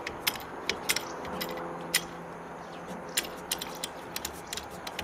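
Plastic tightening knobs on a Nameka roof-rack crossbar being turned by hand, with a string of small irregular clicks and taps as fingers work the knob against the rack.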